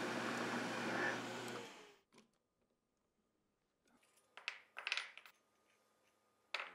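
Drill press running with a steady whir that fades out about two seconds in. After a short gap, a few light metallic clicks and clinks as small hole-clamp parts are fitted together by hand, a group about halfway through and one more near the end.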